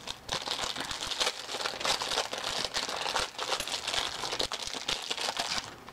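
Crinkly pink polka-dot wrapper from an L.O.L. Surprise doll ball being crumpled and pulled open by hand: irregular crackling that stops just before the end.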